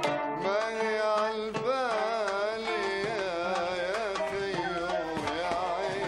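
Traditional Arabic music from a small ensemble: plucked strings including a qanun under a gliding, wavering melody line.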